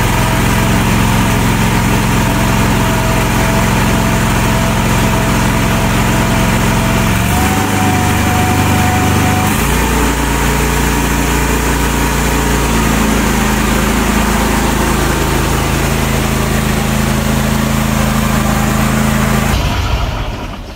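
Walker riding mower's gas engine running steadily after its carburetor was cleaned of water and trash, its speed shifting a few times, then shut off near the end.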